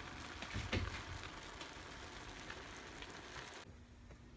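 Faint steady hiss of a pot cooking on the stove, with a light knock or two about half a second in; the hiss cuts off suddenly near the end.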